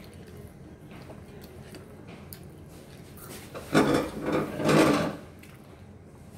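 Crispy Chickenjoy fried chicken being torn apart by hand: a crackling, rustling tearing sound, loud for about a second and a half a little past halfway.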